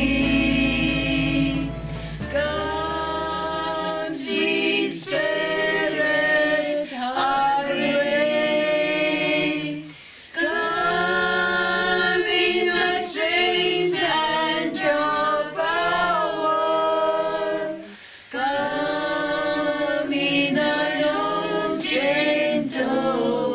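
A small group of people singing a worship song together, with hand clapping. The singing breaks off briefly about ten seconds in and again near eighteen seconds in.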